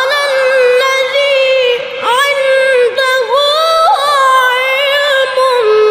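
A Quran reciter holds a long melismatic line in a very high register (the jawab), sustaining high notes with wavering ornaments and glides. There are brief breaths in between, and the line settles onto a slightly lower held note near the end.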